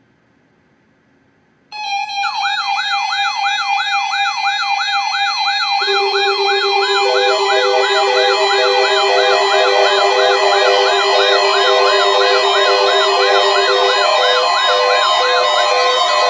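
Several weather alert radio receivers sounding their alarms together, set off by the weekly test signal. After a short silence a fast warbling siren and a steady tone start suddenly; a second steady tone joins about halfway, then an evenly pulsed beep, all layered and loud.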